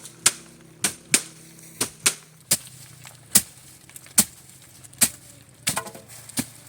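Dry soybean stalks being cut by hand in the field. Each cut is a sharp, crisp snap, coming irregularly at about one to two a second, with a quick double snap near the end.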